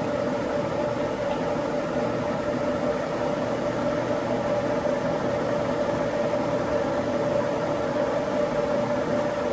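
Standard Modern engine lathe running steadily under power at 340 RPM spindle speed: an even mechanical hum with a held tone.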